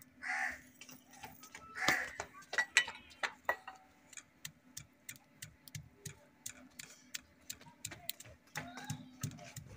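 Pestle pounding ginger, dried garlic and dried coriander in a small stone mortar: sharp knocks about three a second, loudest two to three seconds in, over a steady low hum.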